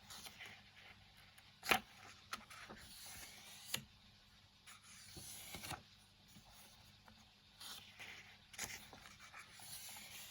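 Pages of a paper colouring book being turned, with soft rustling swishes and a few sharp paper flicks and taps, the loudest about two seconds in.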